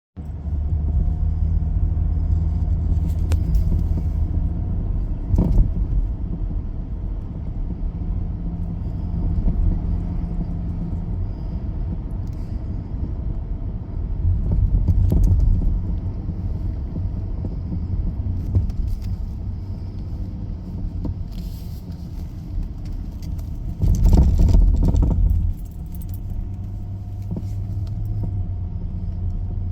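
Audi A8 D2 on the move with a steady low rumble of engine and road, over which come repeated short knocks and rattles from the front right corner of the car. The noise is louder in the last third.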